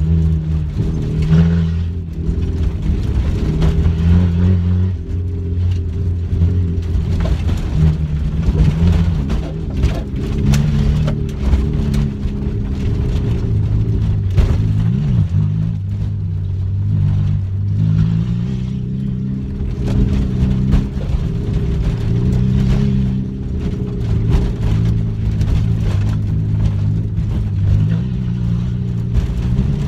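Peugeot 106 engine heard from inside the stripped cabin, revving hard and dropping back again and again through throttle lifts and gear changes. Frequent knocks and rattles come from the car bouncing over a rough dirt track.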